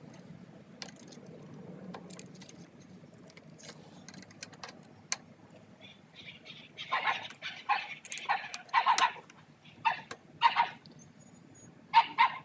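Metal tools and foot-peg hardware clinking and rattling in a run of short bursts about halfway through and again near the end, with only a few faint clicks before that.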